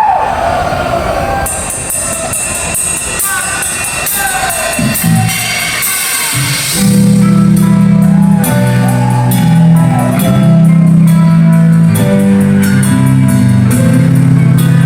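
Live rock band playing a song intro: drums with cymbals and a guitar line at first, then about seven seconds in the full band comes in loud with heavy guitars and bass.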